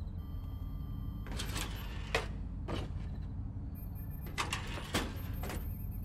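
Several irregular sneaker footsteps scuffing and swishing on a concrete garage floor, over a steady low hum.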